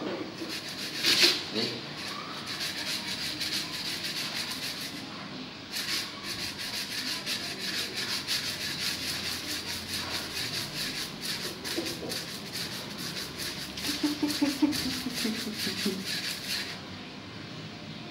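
A stick rubbing and scraping against a door in quick, continuous strokes, with a louder scrape about a second in.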